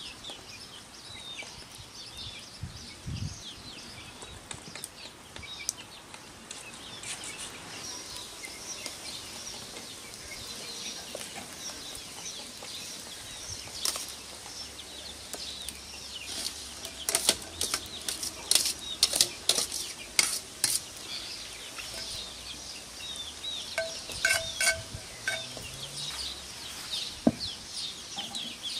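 A metal ladle clinks and scrapes against a steel colander as cooked rice is spooned out, loudest in a run of sharp clinks a little past the middle. Birds chirp in the background, and a hen clucks briefly near the end.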